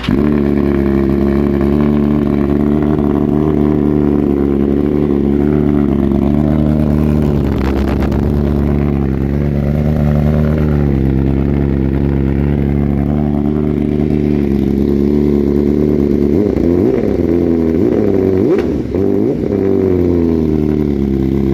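BMW S1000RR's inline-four engine running steadily through an aftermarket exhaust at a fast idle, with a few quick throttle blips about three-quarters of the way in.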